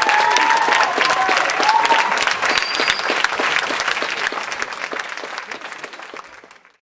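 Audience applauding, a dense patter of many hands clapping, which fades away over the last few seconds and ends in silence just before the end.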